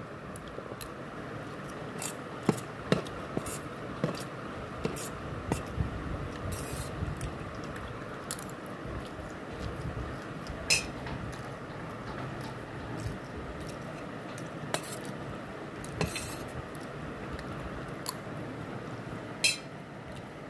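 A metal spoon clinking and scraping on a steel plate of vermicelli, scattered sharp clicks with a few louder ones spread through.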